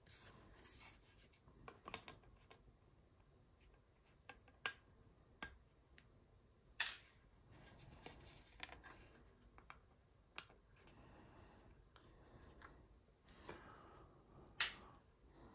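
Faint scraping and rubbing of hobby tools on small plastic model-kit parts, with scattered sharp clicks, the loudest about seven seconds in: raised ejector pin marks being cleaned off the parts.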